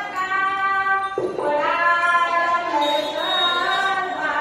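A woman singing a bharud, a Marathi devotional folk song, in long held notes that bend in pitch, with a new phrase starting about a second in.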